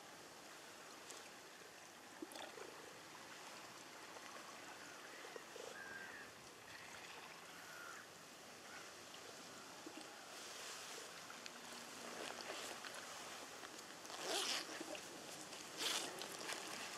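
Steady faint outdoor hiss with a few soft chirps, then two short rasping strokes near the end.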